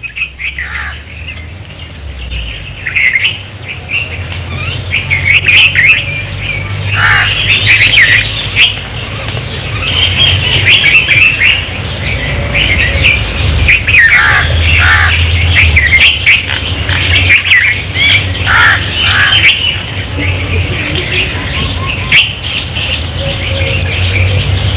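Many birds chirping and calling, short chirps and downward-sweeping calls one after another, over a steady low hum.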